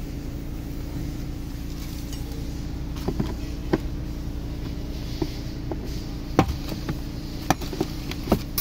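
Hands pulling a car's plastic interior pillar trim and rubber door seal loose: scattered sharp clicks and knocks from about three seconds in, over a steady low hum.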